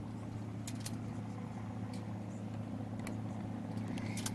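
A motor running steadily: a low, even hum with a few light clicks.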